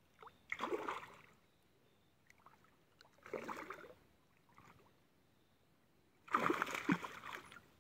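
Water splashing in three short bursts, the last the loudest, as a small hooked fish thrashes at the surface.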